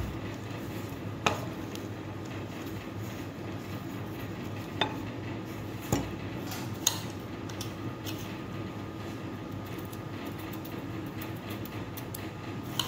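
Kitchen utensil handling: about five sharp clicks and clinks from a wooden rolling pin and a metal spoon working on a plastic-wrapped counter, over a steady background hum.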